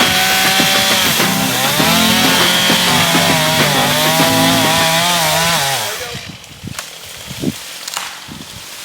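Chainsaw cutting wood, its engine pitch dipping and rising as the chain loads up in the cut. About six seconds in, the saw drops away, leaving a few sharp knocks.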